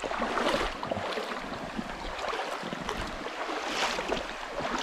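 Stream water splashing and rushing at a river ford: irregular splashes over a steady hiss of running water.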